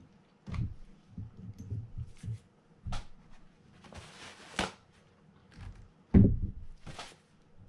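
Gloved hands handling small fishing-reel parts (the gear and its washers) on a workbench: scattered light knocks and taps, a brief rustle about four seconds in, and a louder thump about six seconds in.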